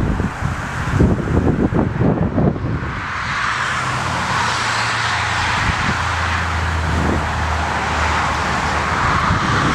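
Wind buffeting the microphone with gusty low rumbles, then from about three seconds in a steady aircraft engine noise with a low hum underneath.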